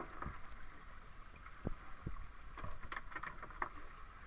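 Steady hiss of wind and sea on an open boat, with about half a dozen irregular knocks and clicks as a bent fishing rod and spinning reel are worked against a hooked fish.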